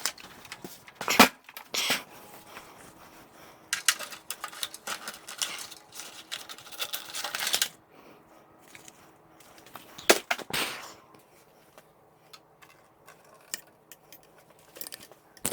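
Hands working on parts inside a computer case: scattered sharp clicks with stretches of rustling and rattling, busiest between about four and eight seconds in.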